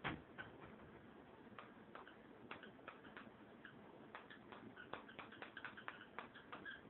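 A dog playing with her toy: one sharp knock at the start, then a run of faint light clicks and taps that comes quicker in the second half, with a few short high notes among them.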